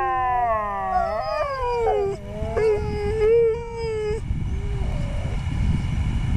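Several huskies howling together in long, overlapping, gliding howls that stop about four seconds in. After that there is a low rumbling noise with a brief faint howl.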